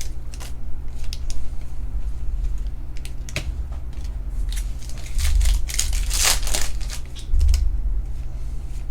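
Trading cards and their pack wrappers being handled: irregular crinkling and rustling with a few sharp clicks, busiest in the second half, over a steady low hum.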